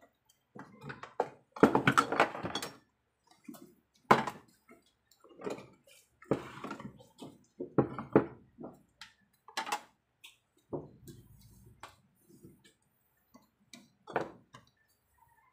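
Kitchen cleanup: irregular clattering and knocks of cookware and utensils being handled and moved around the cooking area. The loudest bursts come about two seconds and four seconds in.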